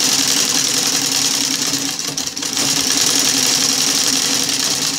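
Sewing machine running steadily as it stitches a hem along a strip of fabric, easing off briefly about two seconds in.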